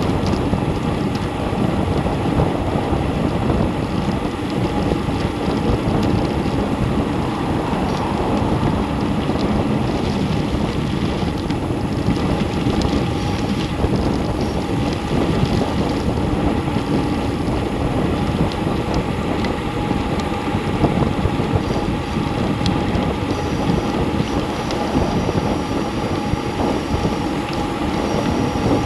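Steady rush of wind over a bike-mounted action camera's microphone as a road bike coasts downhill at about 35 mph, with the tyres' road noise underneath.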